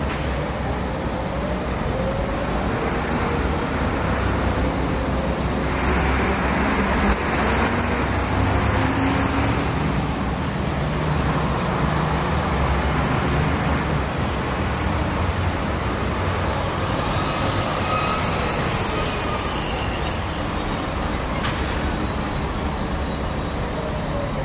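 City trams passing on street track amid steady traffic noise: the running rumble of tram wheels on rails, with faint whines that rise and fall in pitch.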